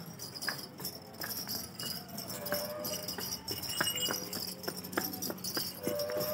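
Bells on a Holstein Friesian cow's leg anklets jingling irregularly as she is walked, with short clicks and brief ringing tones at each step.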